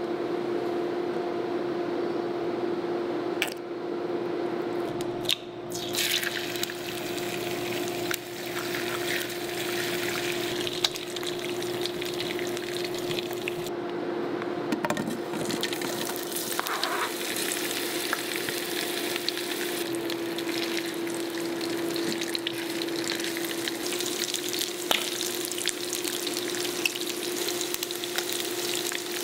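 Food sizzling in a non-stick aluminium frying pan: a crackling hiss that starts a few seconds in and carries on, over a steady low hum.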